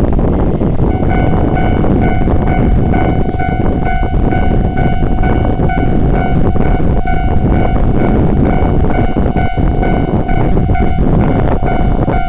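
JR West 381 series limited express train passing close by, a loud continuous rumble of wheels on rails. From about a second in, a steady high-pitched ringing tone sounds over it.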